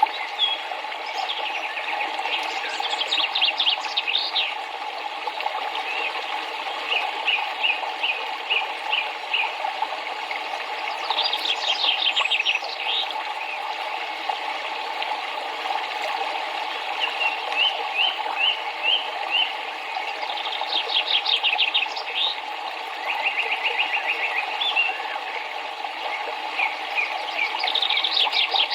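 Steady rush of flowing river water with birds singing over it: quick trills and strings of short chirps every few seconds.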